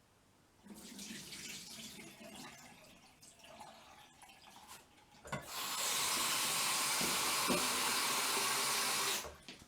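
Rice being rinsed in a pan: a few seconds of water sloshing, then a kitchen tap runs steadily into the pan for about four seconds and is shut off near the end.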